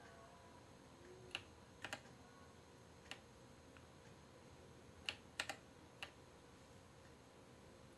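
Womier K66 mechanical keyboard keys pressed a few at a time, giving scattered single clicks with pauses between them, against a quiet background.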